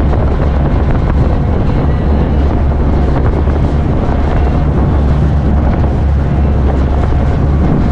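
Wind buffeting the microphone over the steady low drone of a boat under way.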